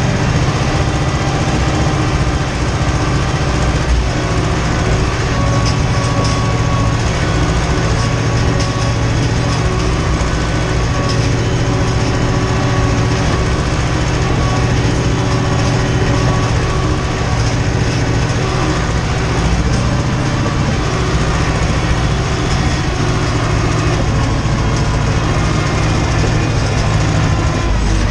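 Ursus tractor's diesel engine running steadily while pulling a field cultivator, heard from inside the cab, with a deep hum and light rattling.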